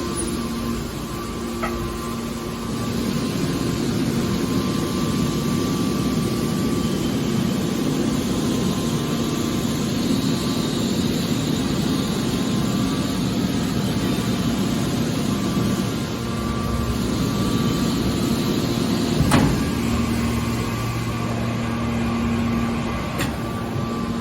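Steady running noise of a vehicle, a low rumble with a constant hum, and a single knock about nineteen seconds in.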